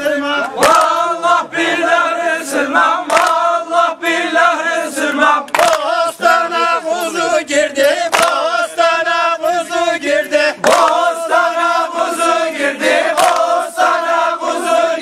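A group of men singing a folk song together in unison, a loud chanted tune carried without pause, with a few short sharp accents along the way.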